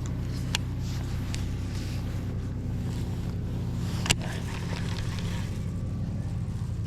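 Boat motor running steadily at low speed, a constant low hum, with a few sharp clicks or knocks, the loudest about four seconds in.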